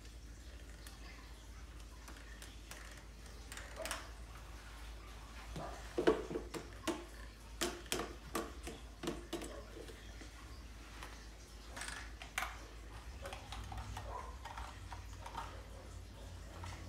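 Hard plastic toys clicking, knocking and rattling as they are handled and rummaged through, with a busy run of clatter about six to nine seconds in.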